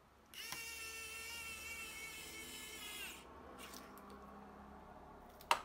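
Small electric precision screwdriver whirring for about three seconds, with a slightly wavering high whine that stops abruptly, as it drives a pentalobe screw into the bottom edge of an iPhone 11. A sharp click follows near the end.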